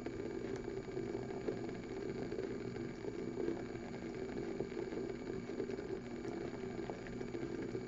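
Water in a glass beaker on a hot plate boiling, close to a rolling boil: a steady low bubbling.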